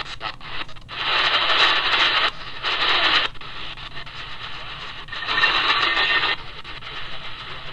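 A QFX R-35 pocket AM/FM/shortwave radio's speaker hissing with static. There are three bursts, each about a second long, with quieter stretches between them and a few faint clicks in the first second.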